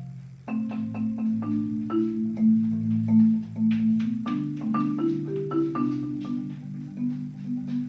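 Marimba played with yarn mallets in rolled chords, the notes sustained by quick repeated strokes and sitting mostly in the low register. A new chord enters about half a second in after a brief dip, and the harmony shifts again around four seconds in.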